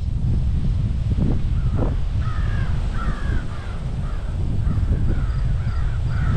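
Crow cawing in a repeated series, about two caws a second, starting about two seconds in, over a steady low rumble of wind on the microphone.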